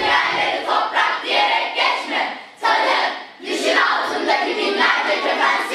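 Children's choir voicing phrases together in unison, with short breaks between phrases about two and a half and three and a half seconds in.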